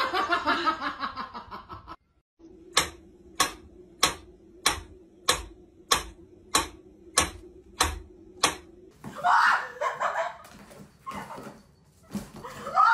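Mechanical pendulum metronome ticking steadily, about ten ticks at a little over one and a half a second. Voice-like sound with laughter comes before the ticking and again near the end.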